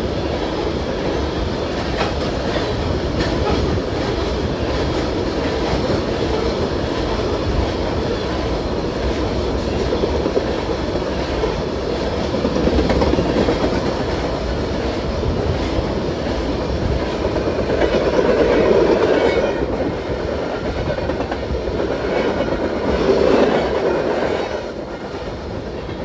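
Freight train of tank cars rolling past close by: a steady rumble of steel wheels on rail with occasional clacks. It swells louder a few times and eases off a little just before the end.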